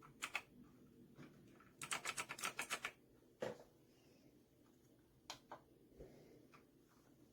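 Computer keyboard keystrokes in short bursts: a quick run of taps about two seconds in, with single key clicks scattered before and after.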